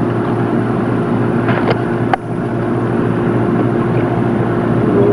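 A steady mechanical hum made of several held pitches, with one sharp click about two seconds in.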